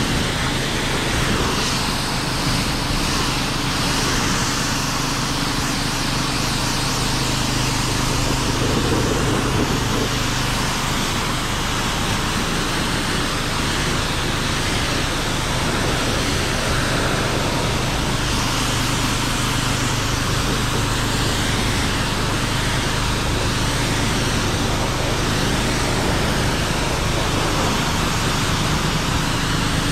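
Steady hiss of snow foam spraying from a lance on a Karcher K4 pressure washer, over the constant motor-and-engine drone of the washer and the portable petrol generator powering it.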